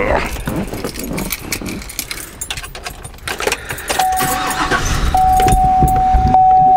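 Keys jangling and rustling inside a pickup cab, then a steady single-pitch warning tone from the dashboard begins about four seconds in and keeps sounding.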